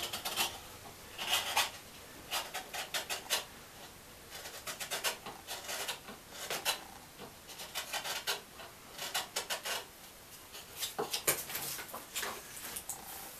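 Hand-forged shrink pot grooving tool cutting the bottom groove into the inside wall of a green-wood shrink pot. Its blade scrapes and shaves the wood in short bursts of quick strokes, with brief pauses between them.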